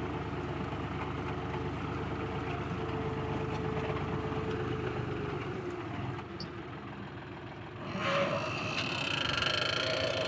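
Tractor engine running steadily, then slowing and dropping in pitch about five to six seconds in. A louder hissing noise with some high tones comes in near the end.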